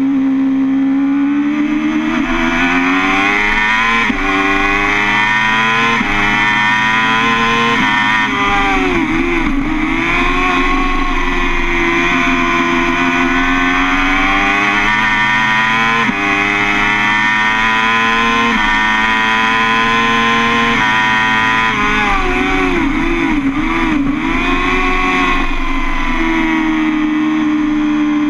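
BMW S 1000 RR inline-four sportbike engine at racing revs. Its pitch climbs and steps down abruptly at each upshift, about 4, 6 and 8 seconds in and again around 16 to 21 seconds. Twice, near 9 seconds and again around 22 to 24 seconds, it falls and wavers as the bike brakes and downshifts, over a steady rush of wind noise at track speed.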